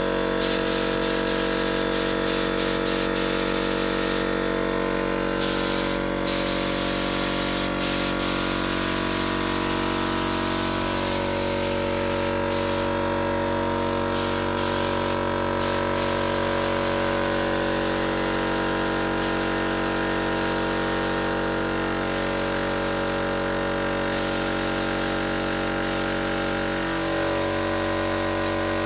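Air spray gun hissing as it sprays hot chocolate onto cold cakes, the spray cutting out briefly several times as the trigger is released. A steady machine hum with several pitched tones runs beneath it.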